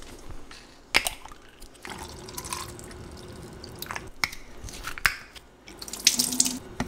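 Small plastic bottles and caps handled at a stainless steel kitchen sink: scattered sharp clicks and knocks with liquid sloshing and dripping, and tap water running over a bottle about six seconds in.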